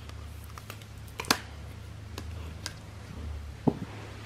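Plastic drink bottle being turned in the hands as fishing line is wound onto it: a few sharp plastic clicks and taps, the loudest about a second in and a duller knock near the end, over a steady low hum.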